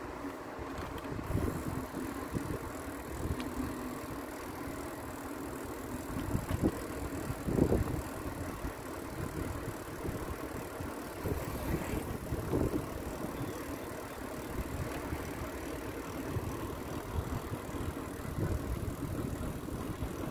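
Wind buffeting the microphone of a camera moving along on a bicycle, mixed with the rumble of tyres rolling on an asphalt path, rising and falling in gusts.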